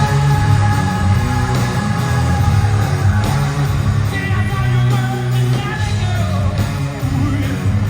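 Live rock band playing loud with distorted electric guitar, bass and drums, and a voice singing over it, as heard from the audience.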